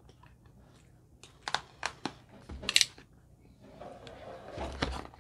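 Utility knife slitting the packing tape on a cardboard box: a few sharp clicks and a short slicing scrape, then cardboard rubbing and rustling as the box lid is worked open near the end.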